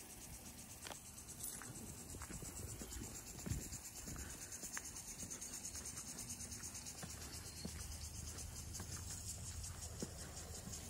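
Faint outdoor ambience: a high, rapidly pulsing insect trill runs throughout over a low rumble of wind on the microphone, with a few soft footsteps.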